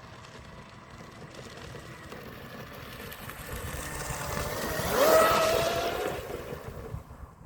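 Brushless electric motor of an RC hydroplane boat whining as the boat runs at speed, growing louder as it approaches. Its whine climbs in pitch about five seconds in as it passes closest, then fades as it moves away.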